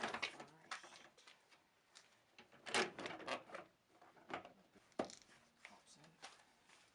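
Plastic interior door panel of a Dodge Ram pickup being handled and lined up against the door: scattered rubbing and knocking, a louder cluster about three seconds in and a sharp click about five seconds in.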